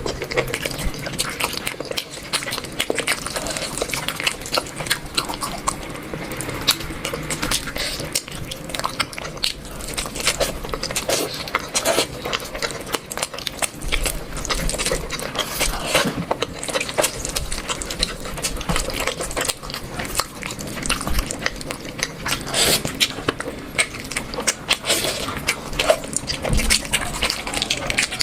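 Close-up eating sounds of a person eating rice and curry: continual wet chewing and mouth clicks, irregular and dense throughout.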